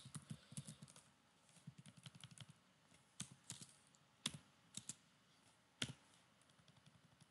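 Typing on a computer keyboard: faint, irregular key clicks, with a few sharper single taps about three, four and six seconds in.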